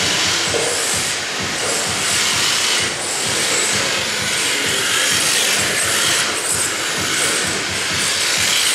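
RC drift cars sliding sideways on the track, their hard tyres scrubbing across the surface in a continuous rasping hiss that swells and fades as cars pass, along with the whir of their electric motors.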